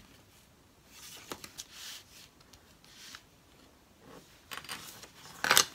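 Paper card stock being handled and folded, with faint rustles and light taps, and one brief louder rustle near the end.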